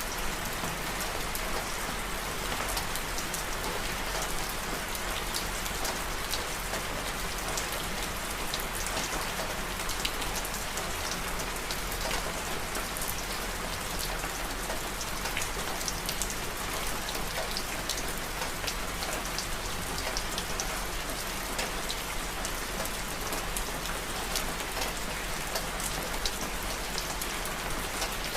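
Steady rain falling, an even hiss of rain with many small drop ticks scattered through it.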